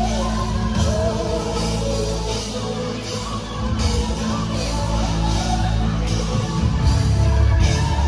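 Music with singing over a band: held bass notes under a melodic vocal line, with cymbals washing in and out.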